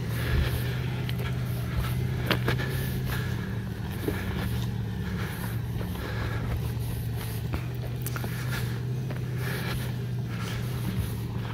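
Off-road vehicle's engine running steadily at low revs as it crawls up a rocky dirt trail, with tyre and gravel noise and a few short knocks from rocks under the wheels.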